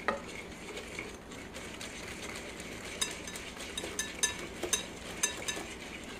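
Wire whisk beating an egg, sugar and flour mixture in a glass bowl as hot milk is added to temper it: a soft swishing at first, then from about three seconds in the whisk's wires click sharply against the glass, roughly twice a second.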